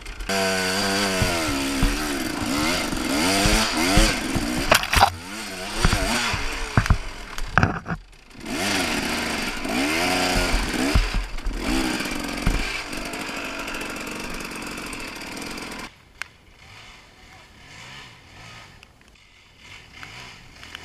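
Husaberg TE 300 two-stroke enduro bike engine revving up and down under the rider, with sharp knocks over the ground. It drops off briefly about eight seconds in, revs again, then fades away after about sixteen seconds, leaving only faint sounds.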